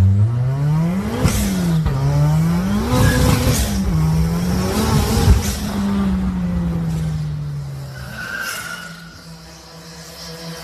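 Turbocharged Tofaş Doğan engine revving up and down several times, then easing off to a lower, quieter note near the end.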